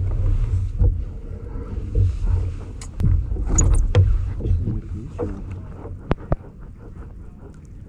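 Handling and paddling noise from a plastic fishing kayak: a low rumble of water and movement against the hull, with scattered knocks and taps of gear on the plastic and two sharp clicks about six seconds in.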